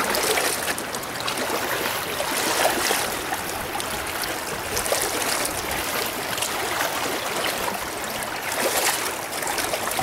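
Shallow river rapids rushing steadily.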